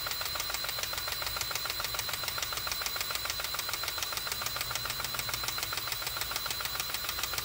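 Power grease gun running steadily with a fast, even rattle and a high whine, pumping grease into the loader's track-adjuster cylinder to tighten the track.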